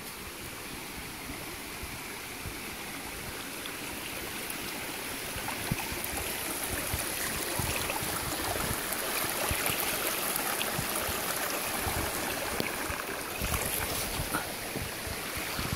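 Shallow river running over rocks, a steady rushing and babbling that grows louder as the camera draws near the water. A few low thumps are scattered through it.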